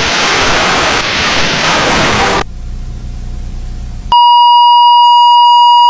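Loud static hiss for about two and a half seconds, then a fainter low hum, then a loud, steady single-pitch emergency alert attention tone that starts suddenly about four seconds in.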